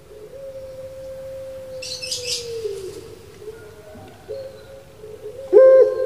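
A puter pelung (Barbary dove, Streptopelia risoria) cooing: one long drawn-out steady coo that sinks in pitch at its end, then, near the end, the start of a much louder coo. A brief high twitter comes about two seconds in.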